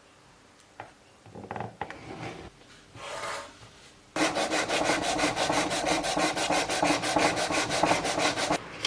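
Wooden piece being sanded by hand with rapid, even back-and-forth strokes, starting about four seconds in, to bring the oversized box bottom down to fit. Before that, a few light knocks and scrapes of wood being handled.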